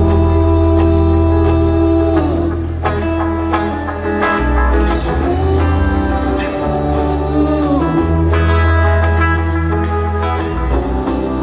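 Live jam-band music from full amplified band: electric guitar lead playing long held notes that bend and slide, over sustained bass, drums and keyboards, heard from the audience.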